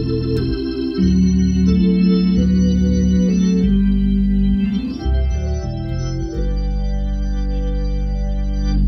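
Hammond organ playing the closing phrase of a slow hymn in full, sustained chords over a deep bass, changing chord about once a second, then holding a final chord for the last couple of seconds.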